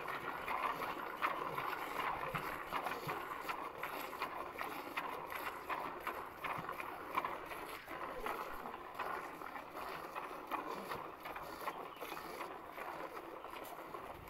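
Hand-milking: streams of cow's milk squirting into a plastic bucket, a steady run of hissing, splashing squirts into a shallow layer of frothy milk.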